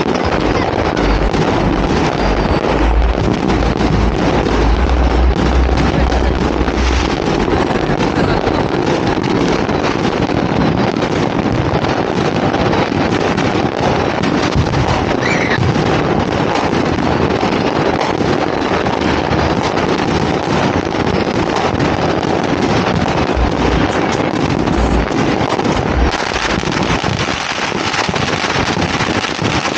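Dense, continuous crackling and popping of New Year's Eve fireworks and firecrackers, with wind buffeting the microphone in low gusts during the first several seconds.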